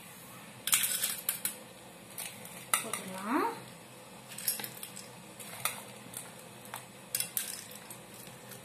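A steel spoon clinking and scraping against a stainless steel bowl and plate while puffed rice mix is scooped and served, in a handful of short, separate strokes.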